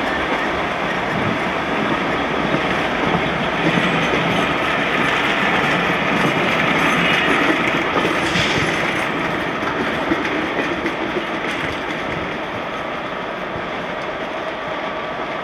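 Train stock rolling past: a class 465 electric multiple unit and a barrier vehicle hauled by a class 67 diesel, wheels clattering over the track. The noise swells around the middle and eases off near the end as the train draws away.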